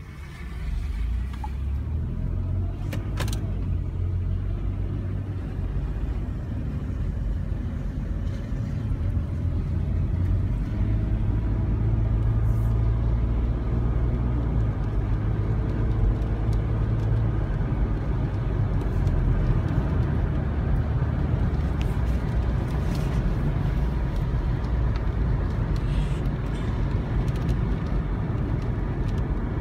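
A car's engine and tyre noise on a wet road, heard from inside the cabin. The engine picks up speed over the first ten seconds or so, then the car cruises steadily with a low rumble.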